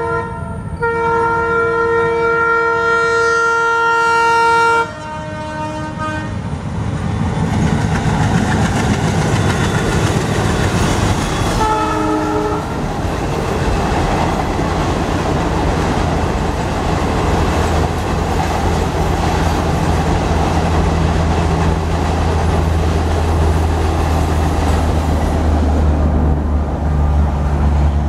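Alco WDG-3A diesel locomotive's dual-tone air horn blasting for about five seconds, with a short break near the start and a brief lower note as it ends, then another short honk about twelve seconds in. After the horn, the train running across the river bridge makes a continuous rushing clatter of wheels over a low steady rumble that grows louder near the end.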